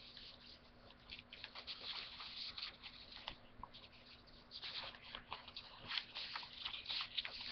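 Sheets of origami paper rustling as they are handled and leafed through, in light, irregular crinkles.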